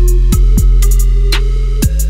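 Electronic background music: a drum-machine beat over a deep, sustained bass, with kicks that drop in pitch and sharp, crisp hits on top.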